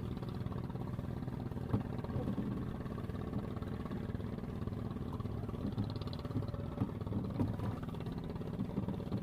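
A small engine running steadily at idle, a low pulsing hum, with a few faint clicks over it.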